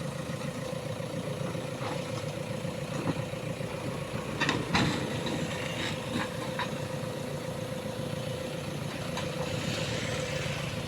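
JCB 3DX backhoe loader's diesel engine running steadily, with a few short sharp knocks about halfway through.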